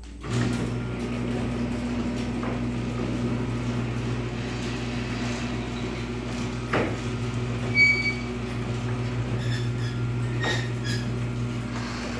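Electric garage door opener running as a sectional garage door rises: a steady low motor hum that starts just after the beginning and holds even. A short high-pitched chirp sounds about eight seconds in.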